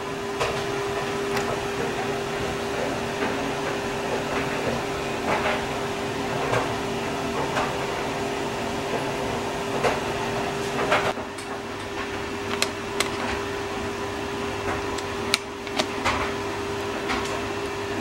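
A steady mechanical hum with a constant mid-pitched tone, and scattered light clicks and taps. The low rumble under the hum thins out about eleven seconds in.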